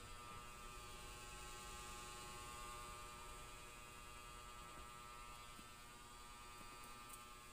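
Near silence: faint, steady room tone with a low electrical hum.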